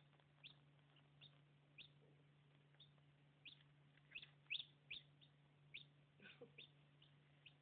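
Newly hatched Black Rock × Old English Game cross chicks peeping: short, high peeps that fall in pitch, repeated irregularly and quickly, loudest around the middle.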